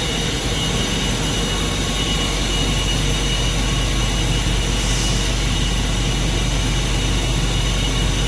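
Steam line being blown down through an open valve: trapped condensate and steam rushing out in a steady loud roar, with a brief sharper hiss about five seconds in. The line is being cleared of dirty water so steam can reach the heat exchanger.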